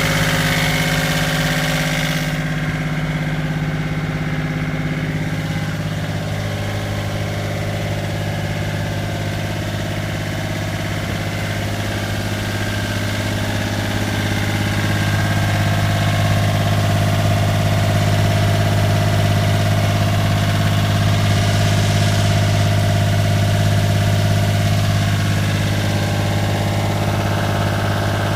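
Volvo Penta marine diesel engine running at a steady speed, a little louder in the second half.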